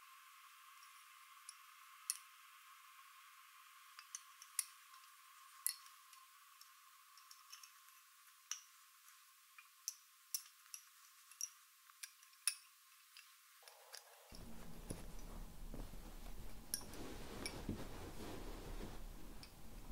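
Wooden Honiton lace bobbins clicking and clacking against one another as pairs are picked up, crossed and twisted, in scattered sharp irregular clicks. About two thirds of the way through, a louder soft rustling joins them.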